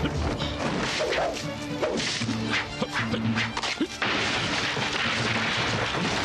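Martial-arts fight sound effects: a quick run of blows, swishes and a crash over dramatic background music, giving way about four seconds in to a steady hiss under the music.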